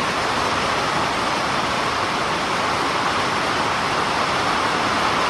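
Steady, even rush of storm water, with no separate drops, knocks or changes.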